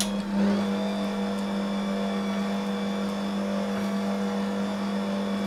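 Electric stand mixer running at a steady speed with an even motor hum, its beater kneading spätzle dough as water is added, with a brief swell in the sound about half a second in.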